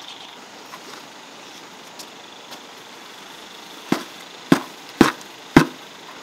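A basin of wet cement mortar being knocked down upside down to empty it: four sharp knocks about half a second apart in the second half.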